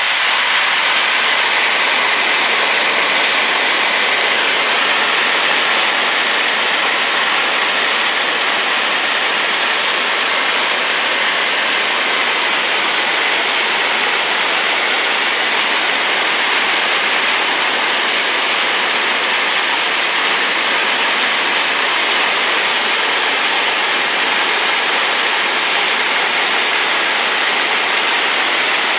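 Waterfall in spate after rain, a loud steady rush of falling water.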